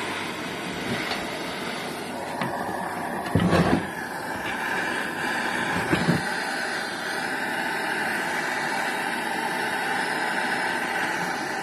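Handheld MAPP gas torch burning with a steady hiss, heating the turbo housing around the wastegate flapper bush; two short knocks come about three and a half and six seconds in.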